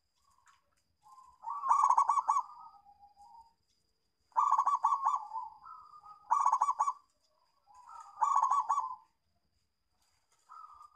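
Zebra dove (perkutut) of a local strain cooing: four loud bursts of rapid stuttering coos, each under a second long, with softer single coos between them.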